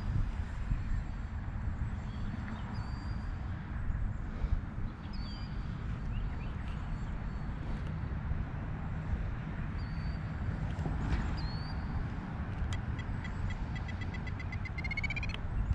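Wind buffeting the microphone as a steady low rumble, with a bird giving short high chirps every few seconds and a quick run of high clicking notes that speeds up near the end.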